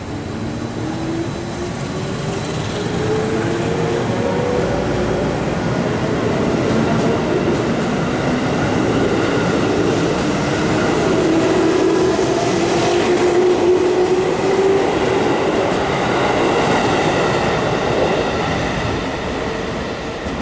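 JR Central 311 series electric train, two sets coupled, pulling away and accelerating past the platform. Its inverter and traction motors whine in several tones that rise steadily in pitch over the rumble of the wheels, growing louder as the cars pass.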